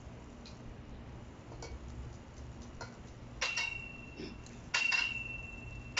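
Metal tongs clinking against an enamel cooking pot: a few light taps, then two sharp clanks in the second half, each leaving a high ringing note that hangs on.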